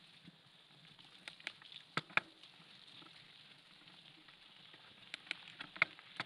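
Mountain bike riding a dirt forest singletrack, recorded on the rider's camera: a faint steady hiss with scattered sharp clicks and rattles from the bike and trail, strongest twice about two seconds in and again near the end.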